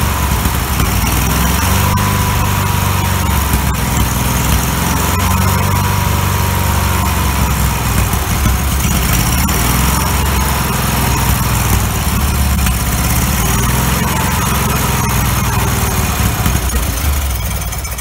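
1990 Murray lawn tractor's twin-cylinder engine running steadily but unevenly, then cut off at the very end. The owner puts the poor running down to fouled spark plugs, one of them loose and not sealing compression.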